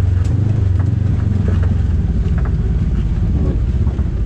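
Side-by-side UTV engine running steadily, heard from the cab, with scattered light ticks over the drone.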